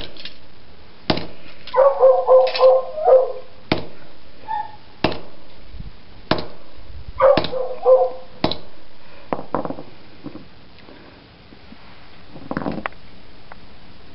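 Hammer blows striking a 3rd-generation iPod nano: sharp knocks at irregular intervals of about a second. A dog barks in two short runs of quick barks, about two seconds in and again about seven seconds in.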